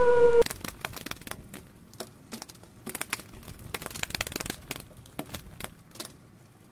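A wolf's howl, one long steady note, cuts off about half a second in. It is followed by faint, irregular crackling clicks.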